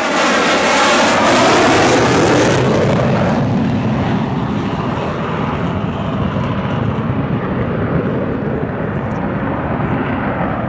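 General Dynamics F-111 jet, with twin Pratt & Whitney TF30 turbofans, passing low overhead. Its whine falls in pitch as it goes by, the sound is loudest about a second and a half in, then a deep roar trails away.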